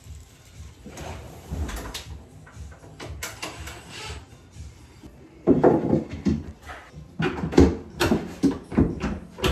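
Irregular knocks and thumps, as of cabinet doors and wooden panels being handled. They are sparse at first and come thicker and louder about halfway through.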